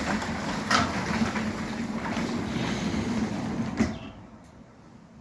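Sectional garage door rolling along its tracks, a steady rumble with a faint hum, ending in a clunk almost four seconds in as the door stops.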